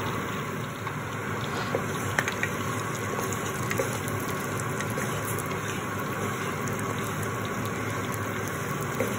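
Whole spices (green cardamom, cloves, cinnamon and cumin seeds) sizzling steadily as a tempering in hot butter and oil in a kadai. A wooden spatula stirs them, giving a few light taps and scrapes.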